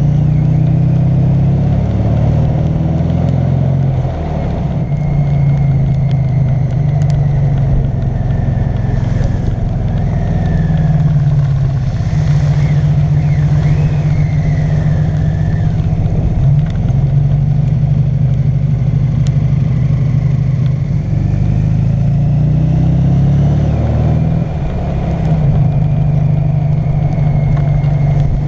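Rewaco trike's engine running under way, a steady loud note that dips and changes pitch briefly about four seconds in and again late on.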